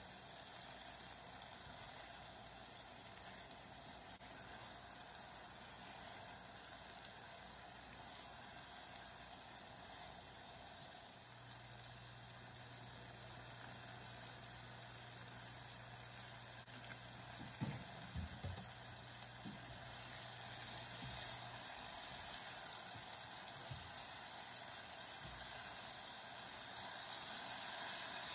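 Diced apples sizzling in butter and sugar in a nonstick sauté pan as the juices cook off, stirred with a silicone spatula. There is a steady hiss, with a few soft knocks about two-thirds through.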